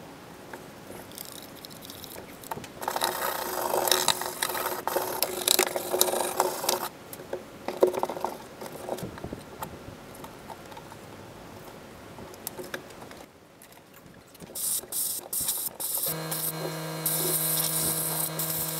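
A rag scrubbing the bare steel floor pan of a 1966 Dodge Charger in bursts, cleaning around the wire harness hold-down tabs. A steady hum starts about three seconds before the end.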